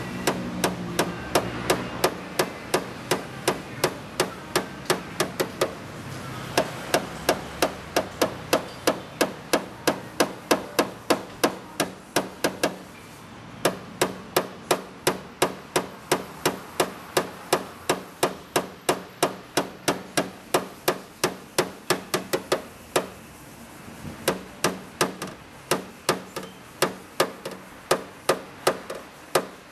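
Light, rapid hammer taps on a tap-down tool, about three a second, with a short break about halfway through: paintless dent repair, knocking down high spots around a dent in a car body panel.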